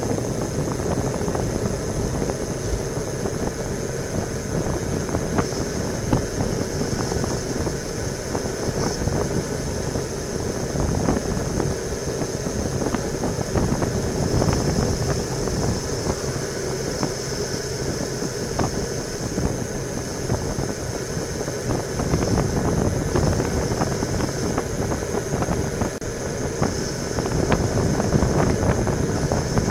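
Wind rumbling over a bike-mounted camera's microphone on a fast road-bike descent at about 40 km/h, mixed with steady tyre and road noise and small irregular rattles and clicks from the bike. A faint steady high whine sits over it throughout.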